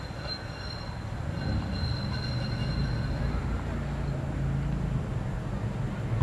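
Tram rolling toward the listener on curved track: a low rumble of wheels on rails grows louder about a second and a half in. A thin, high wheel squeal from the curve sounds over it for the first three seconds or so.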